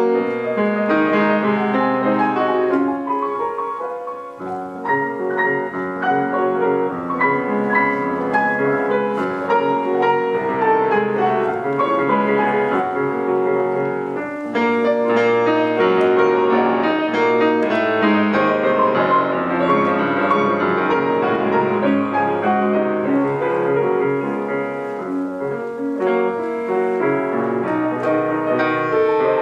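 Piano playing a classical piece with many quick notes, easing into brief lulls about four seconds in and again around fourteen seconds.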